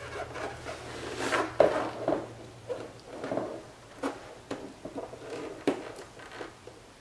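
Double-sided stick tape being unrolled and pressed by hand along the edge of a carbon-fibre front splitter: irregular rustling and scraping, with a few sharp clicks.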